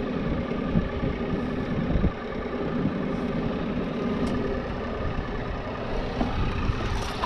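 Boat engine idling steadily, with a low rumble that drops off about two seconds in.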